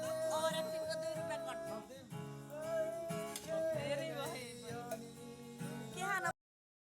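Acoustic guitar strumming with a singing voice holding long, wavering notes. It cuts off abruptly about six seconds in.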